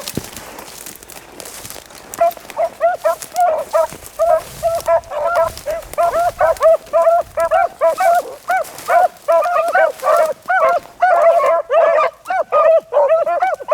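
Beagles baying as they run a rabbit's trail: rapid, overlapping short barks from several hounds, starting about two seconds in and continuing without a break.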